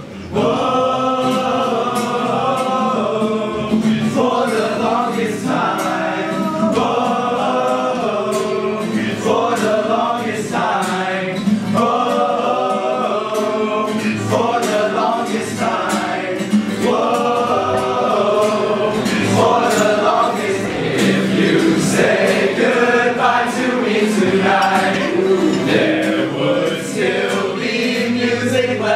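A group of young men singing together, accompanied by an acoustic guitar.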